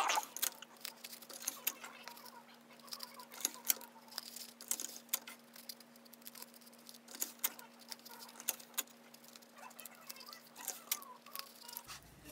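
Faint, irregular small clicks and crinkles of hands at work: clear tape pulled from a dispenser and pressed over palm-frond stems onto a cardboard tube.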